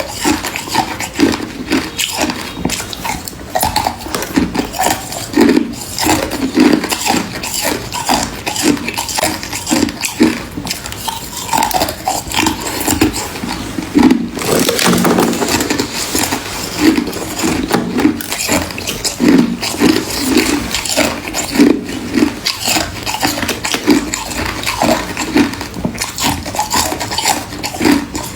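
Close-miked crunching of frost or ice being bitten and chewed in the mouth: dense crackling with uneven chews about every half-second, a longer grinding crunch about halfway through.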